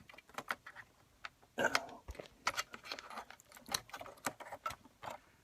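Irregular small clicks and taps of fingers working cable connectors loose from an iMac logic board, with a louder cluster about one and a half seconds in.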